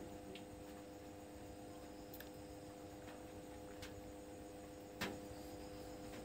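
Faint steady electrical hum with a few light clicks, about four in all, the loudest about five seconds in: fingers tapping a smartphone held in the hand.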